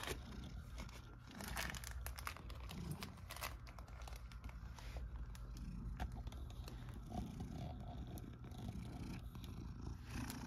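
Domestic cat purring close up, a low steady rumble, with scattered clicks and rustling over it.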